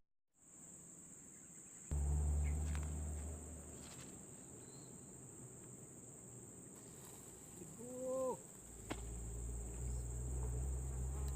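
Crickets or other insects droning on one steady high-pitched note. A low rumble comes in suddenly about two seconds in and again near the end, and a short rising-and-falling call sounds about eight seconds in.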